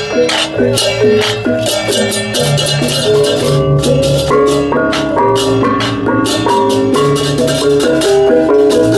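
Gamelan music: metallophones play quick, shifting pitched notes over rapid, regular clashing in the high range and low sustained tones beneath.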